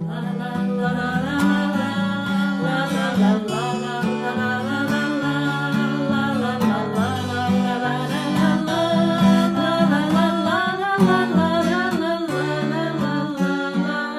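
Acoustic guitar accompaniment of a bard song, with a wordless melody line over it.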